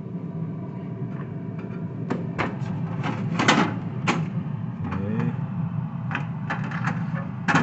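Plastic clicks and rattles as hands handle the twist ice-maker and ice trays in a refrigerator's freezer compartment. They come in clusters about two seconds in and again about six seconds in, with a sharper knock near the end, over a steady low hum.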